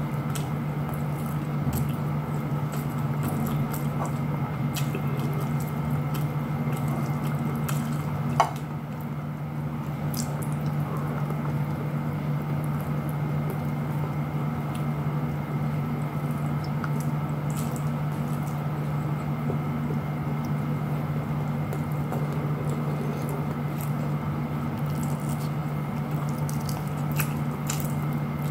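Close-up eating sounds of a person eating rice and fried fish by hand: wet, squishy chewing and fingers working the food on the plate, with small scattered clicks and one sharper click about eight seconds in. A steady low hum runs underneath.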